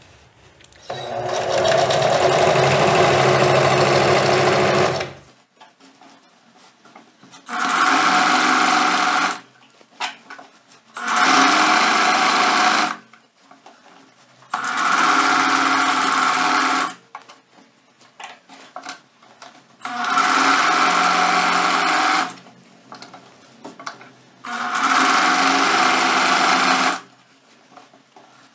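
Singer Facilita domestic sewing machine stitching through an elasticated waistband in six short runs, the first about four seconds long and the others about two seconds each, stopping between runs.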